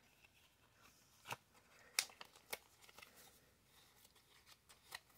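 Faint rustling and a few sharp ticks of a thin clear plastic card sleeve being handled as a trading card is slipped into it, the loudest tick about two seconds in.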